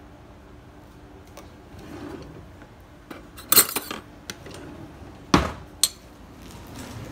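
Metal cutlery clattering in a kitchen drawer as a spoon is taken out, about halfway through, followed by a heavy knock and a light clink.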